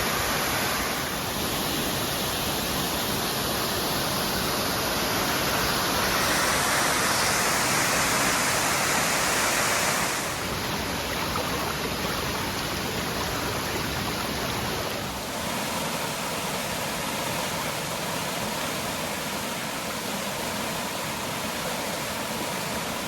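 High Shoals Falls, a waterfall dropping over 50 feet, rushing in a steady dense roar of falling water. Its tone changes abruptly a few times, about one, six, ten and fifteen seconds in.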